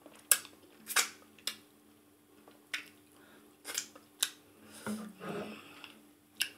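Wet mouth smacks and clicks while chewing maize fufu with ogbono soup: about seven sharp clicks spaced irregularly, with a short low voiced hum about five seconds in.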